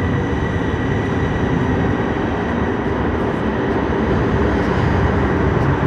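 Train standing at the station platform: a steady, loud noise with a faint high tone held through it.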